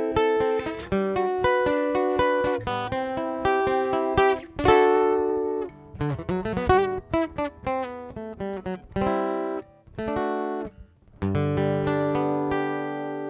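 Solo acoustic guitar playing a run of plucked notes and chords; about eleven seconds in, a final chord is struck and left ringing, slowly fading.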